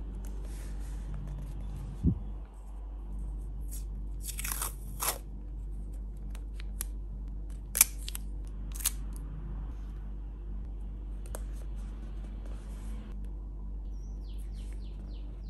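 Washi tape being handled, torn and pressed onto a journal page, with rustling and crinkling about four to five seconds in and a few sharp clicks near eight and nine seconds. A steady low hum runs underneath.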